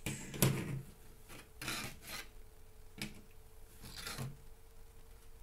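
Small rocket stands being picked up and slid across a desktop: about four short scrapes and knocks, the loudest about half a second in.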